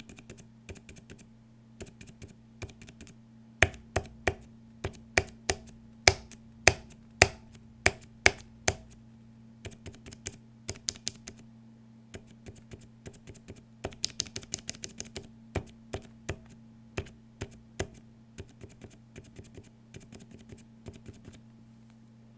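Cherry MX Red keyboard switches lubed with Super Lube 51004, pressed one after another in a switch tester: a series of separate key clacks, some much louder than others, with a quick flurry of presses past the middle. A faint steady low hum runs underneath.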